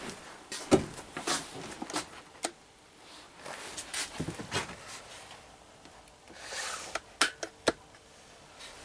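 Footsteps and scattered knocks on a wooden plank floor, with handling rustles in between, in a small wood-lined room.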